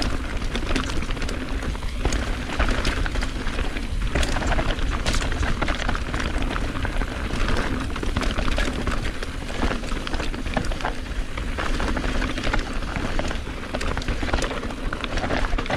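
Mountain bike riding fast down a rough enduro trail: a steady clatter of tyres on dirt and rocks with many sharp knocks and rattles from the bike, over a heavy rumble of wind buffeting the action camera's microphone.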